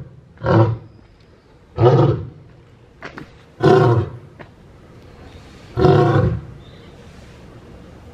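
Male lion roaring, four loud roars about two seconds apart, the later ones longer.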